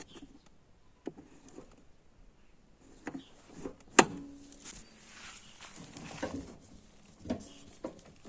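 Honda Fit's metal hood prop rod rattling and knocking in its broken plastic holding clip: scattered clicks and knocks, the sharpest about four seconds in. The broken clip lets the rod rattle, which causes the knocking heard from the glovebox area while driving.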